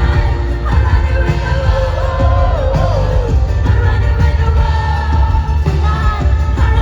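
Live pop concert music: a female lead vocal sings sustained, gliding lines over a loud band with heavy bass.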